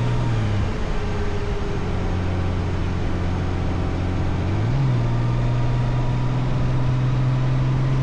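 Honda Goldwing's flat-six engine pulling the bike up to highway speed, mixed with wind and road noise. The engine note dips about half a second in, holds steady, then climbs near the five-second mark and stays higher.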